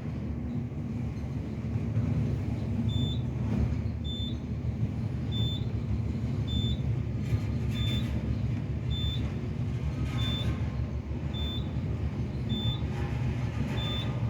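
A short, high electronic beep repeating evenly about every second and a quarter, starting about three seconds in, over a steady low rumble of elevator machinery.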